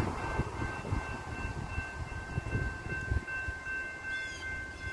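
Railroad grade-crossing warning bell ringing steadily as a train approaches, over an uneven low rumble. A short chirp is heard near the end.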